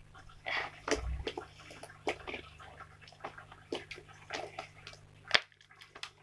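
Slime being kneaded and squeezed by hand: irregular wet squishing with sticky clicks and pops, one sharp smack about five seconds in.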